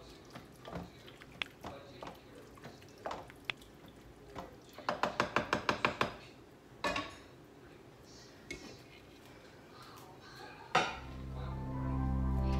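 Wooden spoon stirring chili in a slow cooker's stoneware crock, with scattered knocks against the pot, then a quick run of about eight taps on the crock about five seconds in. Background music fades in near the end.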